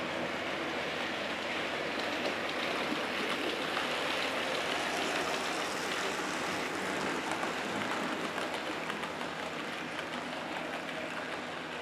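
Model trains running on a layout's track: a steady rattle and rumble of small wheels on rail, with a busy patter of tiny clicks, growing louder midway as a locomotive passes close and then easing off.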